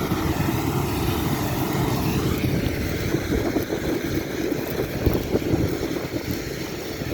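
Combine harvester running steadily while harvesting oats, a continuous low engine and machinery drone.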